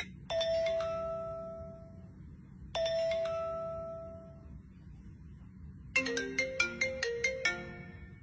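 Smartphone ringtone previews playing one after another. First come two single chime notes about two and a half seconds apart, each ringing out and fading. About six seconds in, a quick repeating ringtone melody of short notes starts.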